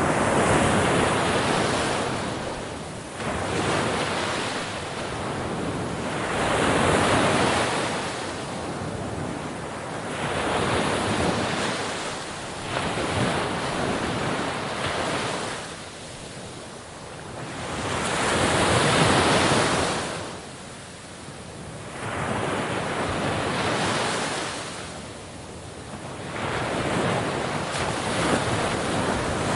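Sea waves breaking against a shore, the surf swelling and fading away every few seconds.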